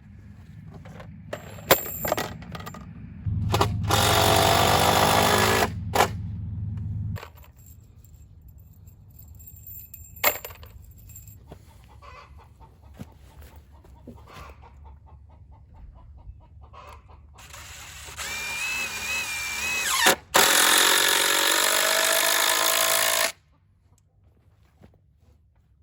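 A power tool running in two loud stretches of several seconds each, the second speeding up with a rising whine, with sharp knocks and clatter from handling lumber between them.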